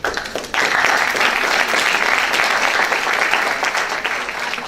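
Audience applauding. It grows louder about half a second in and slowly thins out toward the end.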